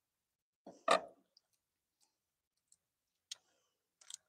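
A single sharp knock about a second in, followed by a few faint clicks near the end, with quiet in between.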